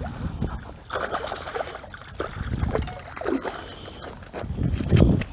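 A hooked largemouth bass splashing and thrashing at the water's surface as it is brought in close, in several irregular bursts, the loudest near the end.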